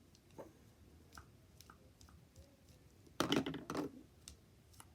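Scattered small clicks and taps, then about three seconds in a loud crinkling rustle lasting under a second: the covering on a new spool of ribbon being picked at and pulled by hand.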